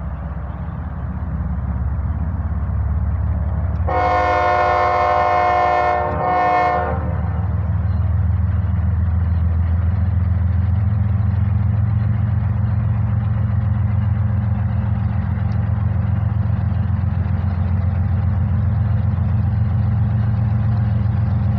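Union Pacific GE diesel locomotives running with a steady low rumble that builds over the first few seconds as the coal train starts up. About four seconds in, the lead locomotive's multi-chime air horn sounds a long blast, then a short one.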